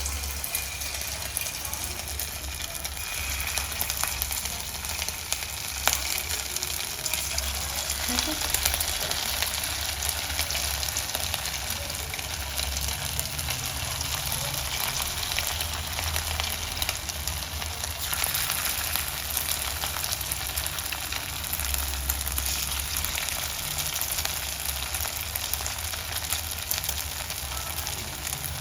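Papaya pakoras deep-frying in hot oil, a steady sizzle with a couple of light clicks about six and eight seconds in.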